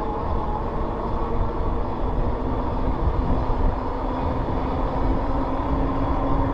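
Fat 26 x 4 inch e-bike tires humming steadily on pavement while rolling at speed, the hum edging up in pitch as the bike speeds up, over a low rumble.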